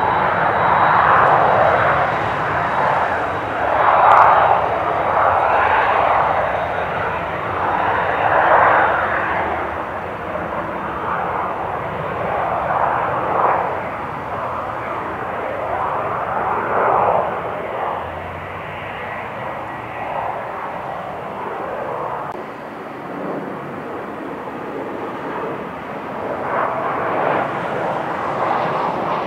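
Jet airliner's engines, a loud rushing noise that swells and fades in uneven waves, easing off somewhat midway and growing again near the end.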